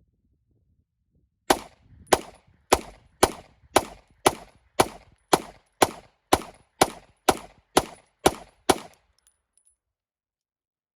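A semi-automatic firearm fired in a rapid string of about fifteen shots, roughly two a second, starting about a second and a half in and stopping about nine seconds in.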